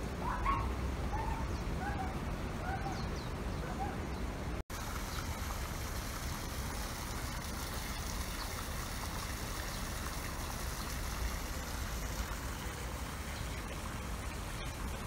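Steady trickle of water in a garden koi pond, with a few short chirps in the first few seconds. The sound cuts out for an instant about four and a half seconds in.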